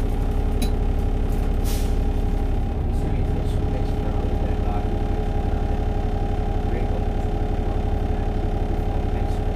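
Optare Solo SR single-decker bus's engine idling steadily while the bus stands still, heard from inside the passenger cabin, with a short hiss about two seconds in.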